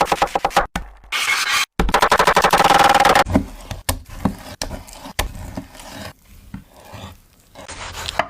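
Rapid, repeated scraping strokes of kitchen food preparation, with the sound cutting off suddenly several times.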